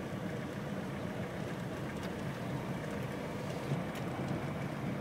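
A vehicle's engine running steadily, with road noise from driving along a rough dirt road.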